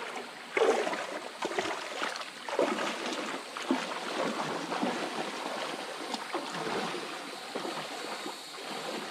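Feet splashing through shallow creek water as two people wade, an uneven run of splashes over the steady rush of the stream.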